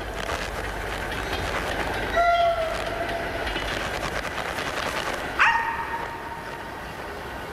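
Train wheels clattering rhythmically on rails, with one short whistle blast about two seconds in. About five and a half seconds in, a sharp rising cry settles into a held whine.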